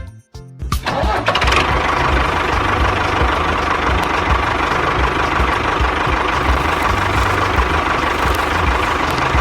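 An engine starting up about a second in, then running steadily with a low, uneven throb.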